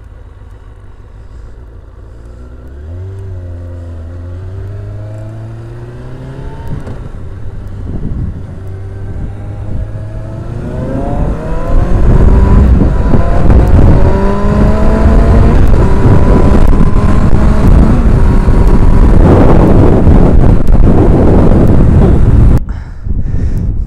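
An inline-four sport bike accelerating hard through the gears. The engine note climbs and drops back at each upshift, three or so times. From about halfway, loud wind buffeting on the microphone at speed covers much of the engine, and it eases suddenly near the end.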